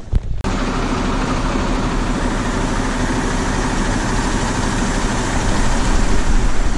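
Coach bus engine idling with a steady hum.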